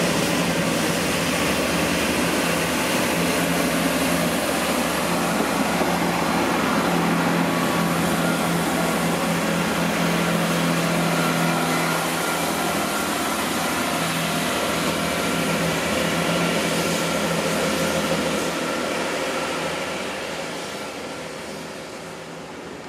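Class 166 diesel multiple unit's underfloor Perkins diesel engines running under power as the train pulls out, a steady drone with a strong low hum. It fades over the last few seconds as the train draws away.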